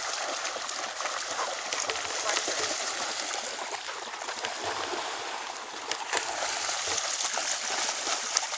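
Several dogs wading and splashing through shallow pond water: a steady splash-and-trickle noise with scattered sharper splashes.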